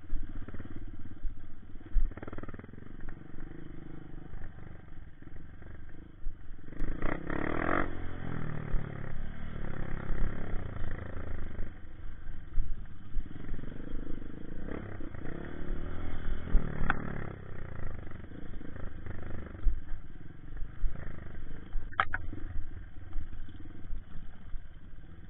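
Honda CRF150 dirt bike's single-cylinder four-stroke engine running at low speed over a rocky trail, revving up briefly twice, with a couple of sharp knocks.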